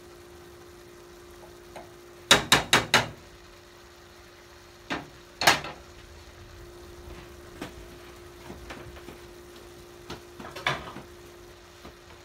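A cooking spatula knocked four times in quick succession against the rim of a metal pot, then clattering louder as it is set down on a spoon rest, with a few small clinks later. Under it, shrimp sizzle faintly in a frying pan over a steady hum.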